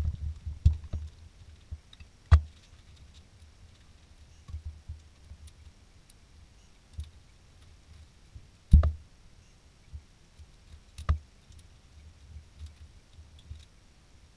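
Hand work on ATV wiring: scattered light clicks and low thumps of parts and tools being handled on the metal frame, with three sharp knocks, about two seconds in, near nine seconds and near eleven seconds.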